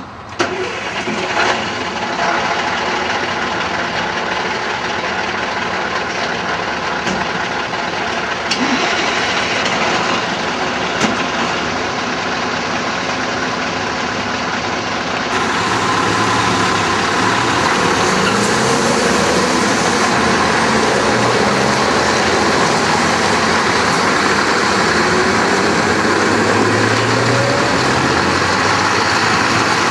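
Scania 164 V8 timber lorry diesels running at idle, with a few knocks, then from about halfway through a lorry moves off, its engine getting louder and rising in pitch repeatedly as it pulls away.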